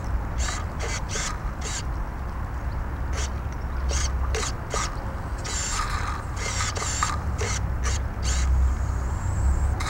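Cold steam engine of a model steam launch turning over unevenly in irregular puffs and clicks, over a steady low rumble. Steam is condensing in the cold engine, and the water must be discharged before it runs smoothly.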